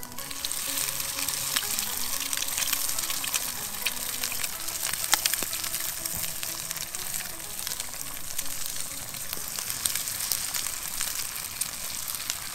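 Eggs and bacon frying in a pan over a campfire: a steady sizzle with many scattered pops and crackles.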